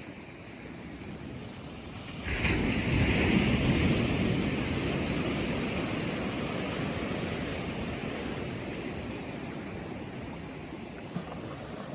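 Ocean surf on the shore: a wave breaks suddenly about two seconds in, and its wash fades slowly over the following seconds.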